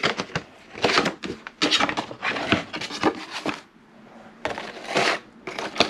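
Irregular rustling and clicking of meal-kit packaging being handled and set down, in several bursts with a short lull a little past halfway.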